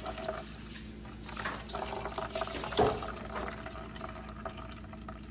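A thin stream of coconut milk trickling and splashing steadily into a stainless steel bowl full of milk, as it drains from the strainer. One brief louder knock sounds a little past halfway.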